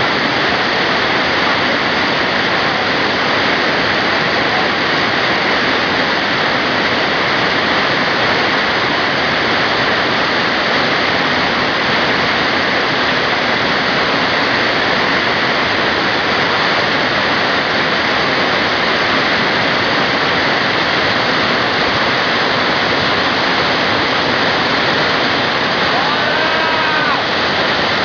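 Waterfall rushing: a loud, steady wash of falling water that does not change.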